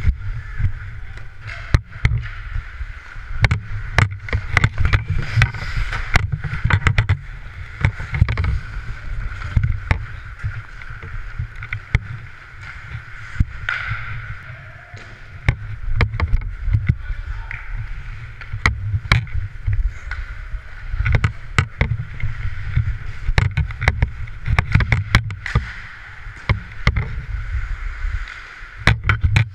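Ice hockey from a helmet-mounted camera: skate blades scraping and carving the ice, with a steady low rumble on the microphone from the skater's motion. Frequent sharp clacks of stick and puck on the ice and boards.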